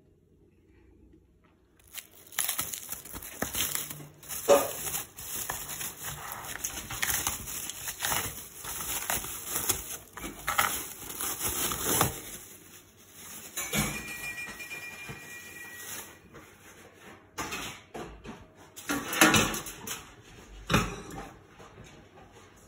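Tandoori-marinated chicken cooking in a pan: a crackling sizzle with irregular knocks and scrapes, starting suddenly about two seconds in.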